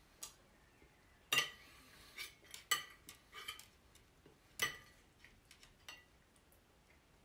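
Metal knife and fork clinking and scraping against a plate while cutting food: about ten sharp, irregular clinks, the loudest about a second and a half in, near three seconds, and just after four and a half seconds.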